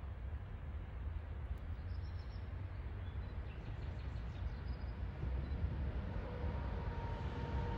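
Outdoor lineside ambience between trains: a low steady rumble with faint bird chirps in the middle. About six seconds in, a faint steady hum comes in and keeps going.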